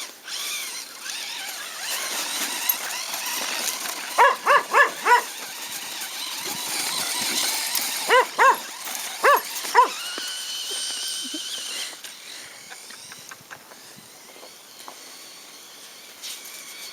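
A whippet and pit bull mix dog barking in two bursts of four short barks, about four and eight seconds in, over the running of an electric RC monster truck on snow.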